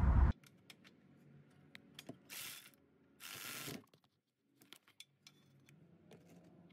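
Socket ratchet clicking in two short runs as a brake caliper bolt is tightened, with a few faint ticks between.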